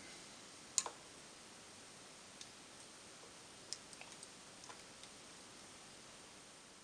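A few faint clicks and taps as a small bundle of rechargeable battery cells with a wire attached is handled, the sharpest about a second in, over a steady low hiss.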